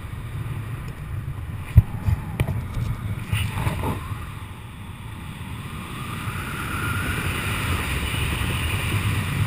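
Wind buffeting a helmet-mounted camera's microphone during a parachute descent under canopy: a steady low rumble, with a sharp knock a little under two seconds in and a few lighter bumps just after, and a hissing rush building near the end.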